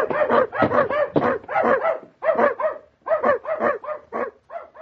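A dog barking in a rapid, excited run, about three or four barks a second, with short pauses about two and three seconds in, the barks growing fainter near the end.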